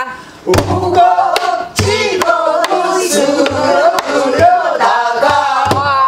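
Voices singing a Korean Namdo folk song together in long, wavering, ornamented notes, with a few low strokes on a buk barrel drum keeping the rhythmic cycle.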